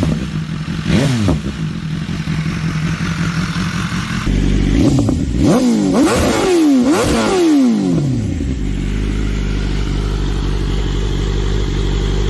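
BMW S1000RR inline-four engine through an aftermarket exhaust, idling with a throttle blip about a second in. About four seconds in the sound changes abruptly and the engine is blipped four or five times in quick succession, each rev rising and falling, before settling back to a steady idle.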